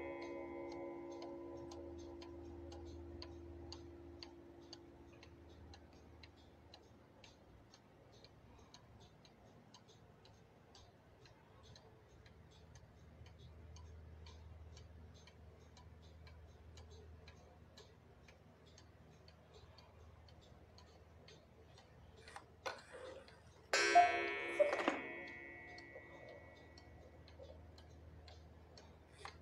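Schatz 8-day cuckoo clock movement ticking steadily, while the ringing of a cuckoo call dies away over the first few seconds. Near the end, a couple of clicks from the striking mechanism come just before a single cuckoo call of about a second, and another call begins right at the end.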